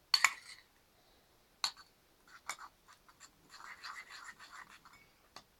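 A spoon clinking and scraping against a plate while stirring slime as it thickens with borax water. A sharp clink right at the start and a couple more taps, then a longer stretch of scraping about three and a half seconds in.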